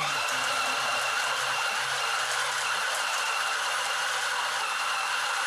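GB National ST 830 food processor's motor running steadily at speed, its chopping blade mincing raw beef: a steady whine over a low hum.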